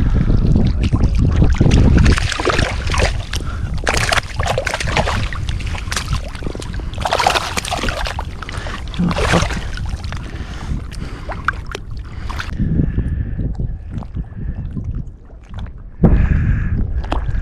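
Wind buffeting the microphone, then repeated water splashes and sloshing through the middle as a hooked trout thrashes at the surface and is grabbed by hand.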